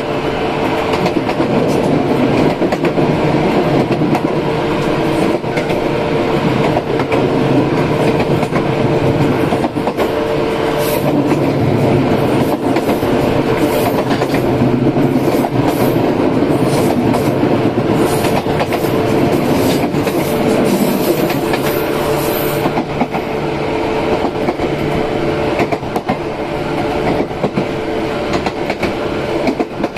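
Izukyu 8000 series electric train running, heard from inside the car: a steady hum with a held tone from its Hitachi-built traction equipment, over running noise and the clack of wheels on rail joints. A run of short high-pitched bursts comes in from about ten seconds in and stops a little past the middle.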